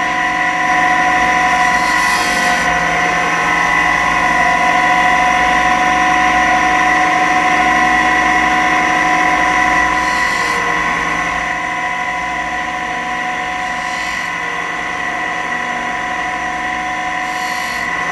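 Bench power tool motor running steadily with a constant whine, with brief hissing scrapes about 2, 10, 14 and 17 seconds in as a graphite tool is worked against it.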